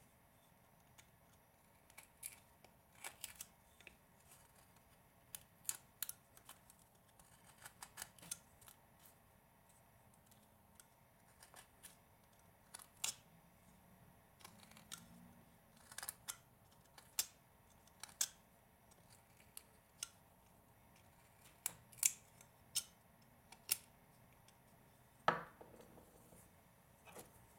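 Whittling knife slicing chips from a hand-held block of wood: short crisp cuts at irregular intervals, one or two a second, with one longer, louder drawn cut near the end.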